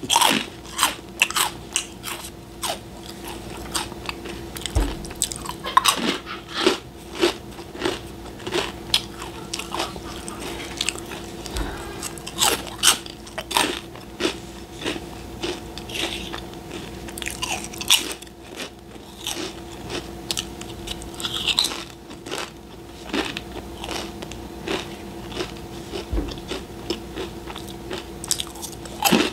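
Close-miked chewing of crunchy snack crackers: a steady run of irregular crisp crunches, several a second, with a faint steady hum underneath.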